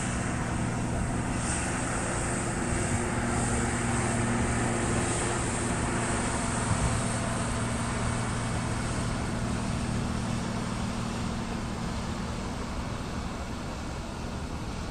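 UPS Boeing 757 freighter's twin jet engines running steadily during the landing rollout, easing off slightly over the last few seconds.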